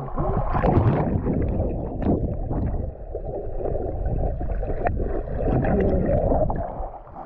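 River water splashing and sloshing close by as someone moves through it, with irregular splashes and a muffled sound.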